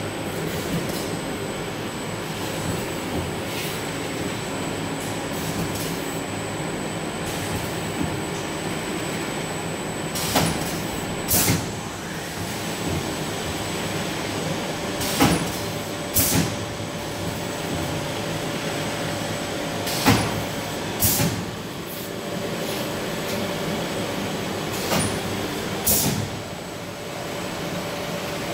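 Hunter Model 2404 automatic cup filling and heat-sealing machine running: a steady mechanical noise under a faint steady high whine. From about ten seconds in come pairs of short, sharp air-release hisses from its pneumatic cylinders, about a second apart, repeating roughly every five seconds with each machine cycle.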